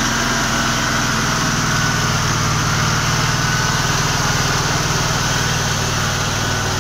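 Honda GX630 V-twin engine of an Elemax SH11000 generator running steadily at constant speed. It is on a test run after its carburetor and magnetic fuel-cut switch were cleaned to cure a no-start.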